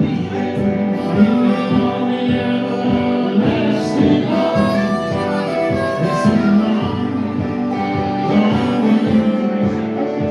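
Live blues band playing an instrumental passage between sung lines, with a steady beat.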